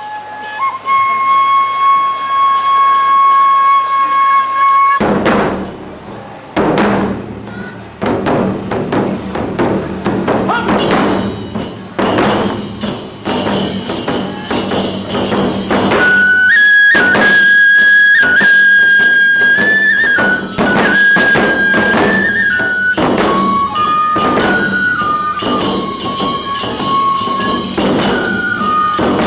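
Aomori Nebuta hayashi: a shinobue bamboo flute holds one note, and about five seconds in the large Nebuta taiko drums enter. The flutes then play the melody over steady drum beats and rapid clashing of tebiragane brass hand cymbals.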